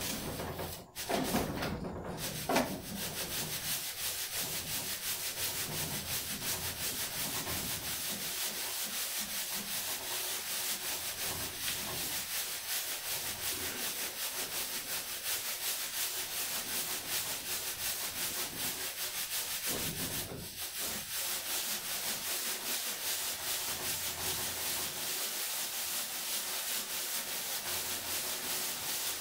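Sand being sifted through a hanging wire-mesh sieve shaken back and forth: a steady rasping hiss of grains over the mesh, with a short break about twenty seconds in.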